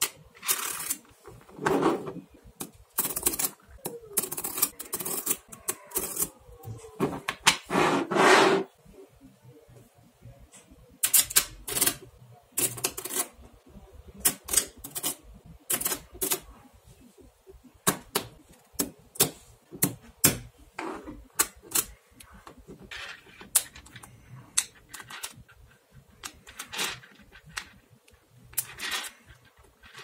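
Small magnetic balls clicking and snapping against one another as they are pressed and rolled into rows, in irregular clicks and short rattles. Busier clattering over the first eight seconds or so, then sparser single clicks.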